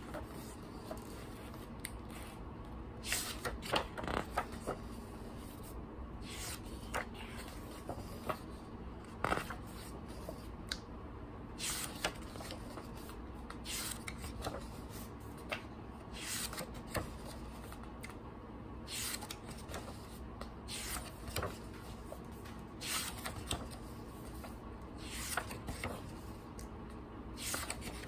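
Pages of a hardcover picture book being turned by hand, one after another, each turn a short papery swish, roughly one every second or so at an uneven pace.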